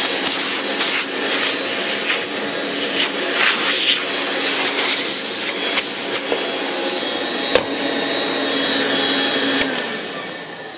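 1949 Electrolux Model 30 tank vacuum running, its motor fans and baffles freshly cleaned, with a steady hum under the rush of air; the rush comes and goes as a hand covers and uncovers the wand opening. Near the end there is a click and the motor winds down.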